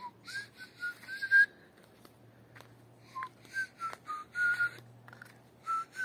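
A person whistling through the lips: a wandering run of short notes around one pitch with breathy air noise, in three phrases with short pauses between.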